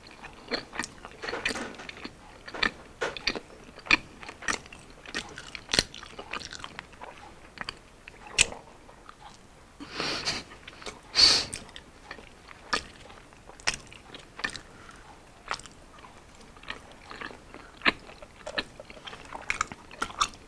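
Close-up mouth sounds of a person eating battered deep-fried street food: chewing, biting and crunching with many short wet clicks, and a louder patch of crunching a little past ten seconds in.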